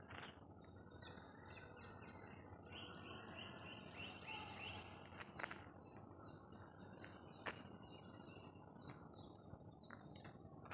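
Faint open-air ambience with small birds chirping repeatedly in the background, and a few soft clicks.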